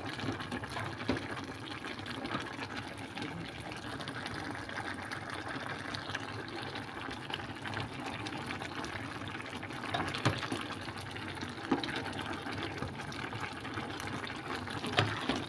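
A wooden spatula stirring moringa leaves and okra through a simmering broth in a metal pot: a steady wet sloshing, with a few light knocks of the spatula against the pot.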